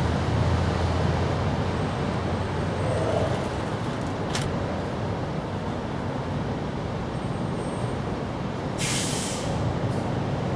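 Steady low outdoor background rumble, with a single sharp click about four seconds in and a brief hiss just before nine seconds.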